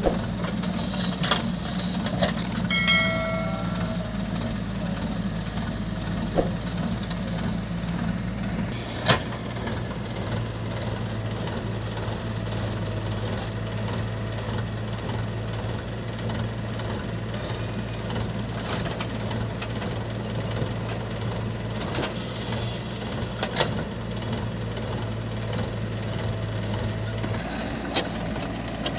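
Diesel engines of a Mahindra 575 DI tractor and a JCB 3DX backhoe loader running steadily while the backhoe digs and loads earth into the tractor trolley. The engine note shifts about nine seconds in, and sharp clanks and knocks from the bucket and trolley come through now and then, with a short pitched sound about three seconds in.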